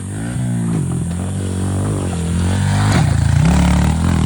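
Honda CRF110 pit bike's small single-cylinder four-stroke engine revving up and down as it is ridden over rough ground. A sharp clack comes about three seconds in, then the engine gets louder, with a quick rise in pitch.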